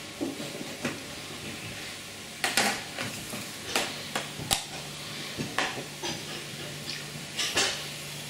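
Kitchen clatter of a plate and utensils, with an aerosol can of whipped cream being shaken and then sprayed in a short hiss near the end, over a faint steady low hum.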